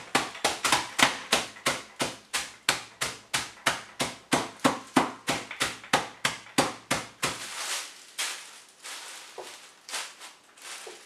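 Rolling pin bashing digestive biscuits in a plastic bag on a worktop, about three blows a second, crushing them into crumbs. After about seven seconds the blows stop and the plastic bag rustles softly as the crumbs are pressed by hand.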